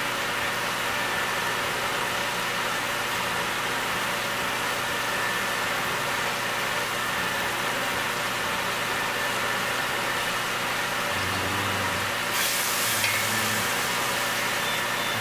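Diced chicken and bacon sizzling and simmering in a pot, over the steady hum of a kitchen exhaust fan. About twelve seconds in there is a brief louder rush as a wooden spoon stirs the pot.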